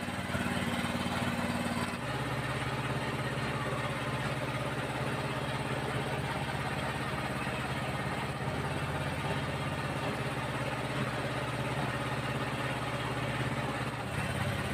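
Small motorcycle engine running steadily in third gear on its stand, its rear wheel turning a homemade water pump. Its note drops slightly about two seconds in, then holds steady.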